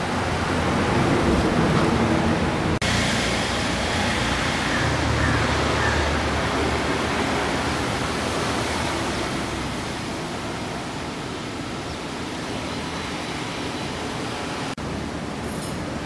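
Steady, loud rushing noise without any clear tone or rhythm, cut off for an instant twice, about three seconds in and near the end.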